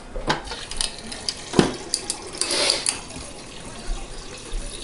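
Water running from a GE refrigerator's door dispenser into a plastic bottle, with a few sharp clicks and knocks, the loudest about a second and a half in.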